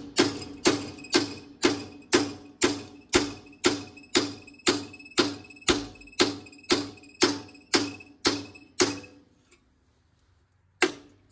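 Hammer driving a cold chisel into a rusted-on steel muffler on a tractor's exhaust pipe, splitting it to get it off. Steady metal-on-metal blows about two a second, each ringing. They stop for about two seconds near the end, then one more blow.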